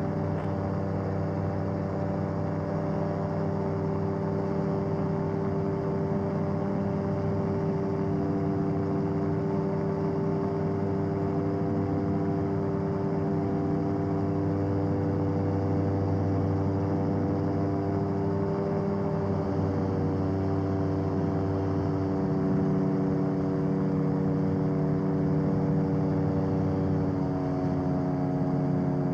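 BAD-12 Gyrotrainer gyroplane's engine and propeller droning steadily in flight, heard from inside the cabin, its pitch shifting slightly near the end.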